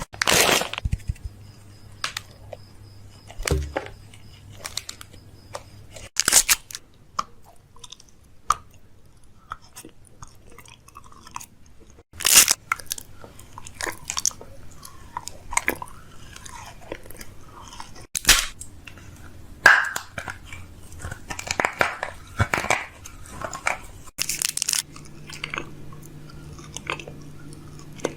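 Crunchy chewing and biting, with irregular crackly crunches, in short pieces that cut off abruptly about every six seconds.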